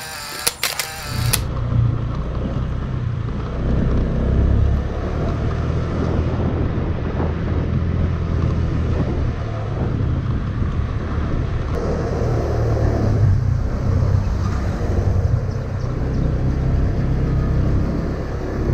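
Motorcycle engine running while riding on the road: a steady low rumble.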